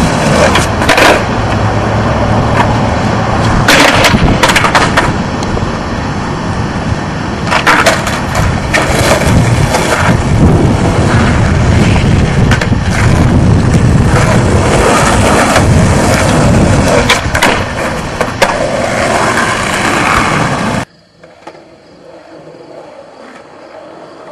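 Skateboard wheels rolling on asphalt, with the sharp clacks of the board being popped and landed during tricks, loud. About three-quarters of the way through the sound cuts off abruptly and drops to a much quieter level.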